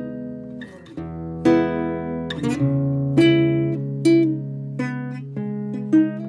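Background music on acoustic guitar: plucked notes ringing out one after another over held low notes.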